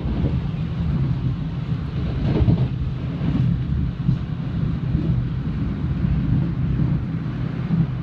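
Passenger train running at speed, heard from inside the car: a steady low rumble of the wheels on the rails, slightly louder for a moment about two and a half seconds in.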